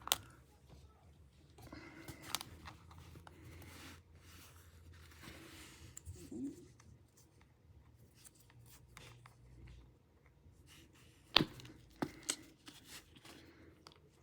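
Small clicks and scraping of a plastic pry pick working between an iPhone 7's screen and frame, held back by strong adhesive, with one sharp click about eleven seconds in.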